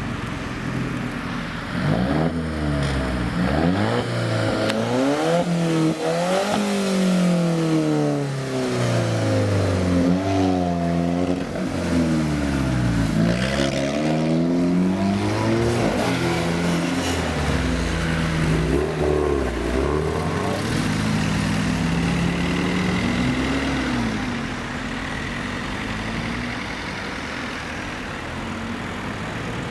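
Several Alfa Romeo cars' engines revving and accelerating one after another, their pitch climbing and dropping again and again. Near the end the sound settles to a quieter, steadier running.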